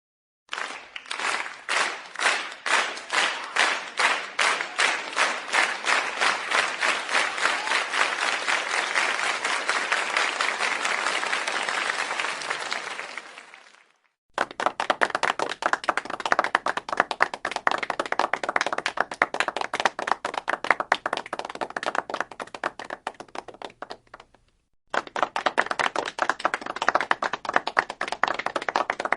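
A crowd clapping in unison, about two to three claps a second, then breaking into continuous applause that fades out. After a brief silence comes another clip of dense applause, and after a second short gap, a third.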